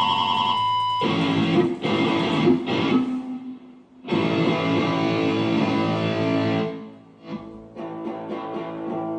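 Distorted electric guitar playing loud, sustained chords in blocks. It breaks off briefly just before four seconds in, comes back loud, and plays quieter over the last couple of seconds.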